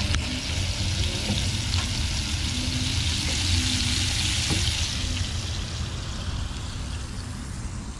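Fish pieces frying in oil in a nonstick skillet on a portable stove, a steady sizzle that fades near the end, over a low rumble.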